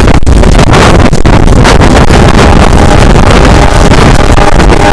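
Heavy wind buffeting on the microphone from a moving passenger train's side window, over the train's rumble as it runs along the track. A faint steady high tone joins in about halfway through.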